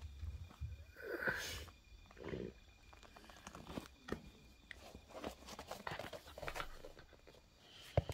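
Small dog playing with and chewing a knotted rope toy: irregular small clicks, rustles and mouthing noises, with a couple of short breathy sounds in the first few seconds and a sharp click near the end.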